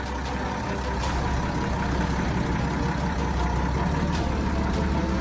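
The 1943 M3A1 White scout car's Hercules six-cylinder petrol engine running steadily with a fast, even low-pitched beat.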